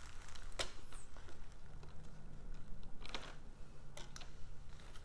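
A few sharp clicks and clacks from the metal parts of a carpet stretcher as it is handled and set on the carpet, heard over a steady low hum.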